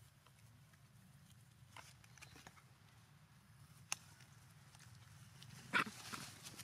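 Macaques handling and chewing rambutan fruit: sparse soft clicks and rustles, a sharp click about four seconds in and a louder brief burst of crackling near the end, over a faint steady low hum.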